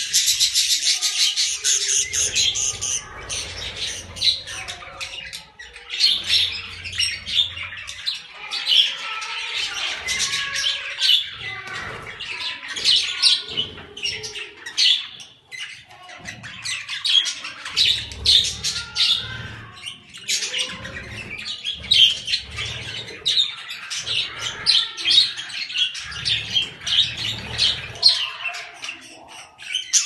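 A flock of budgerigars chirping and chattering nonstop in rapid, overlapping high calls, loudest in the first couple of seconds: the busy chatter of contented budgies.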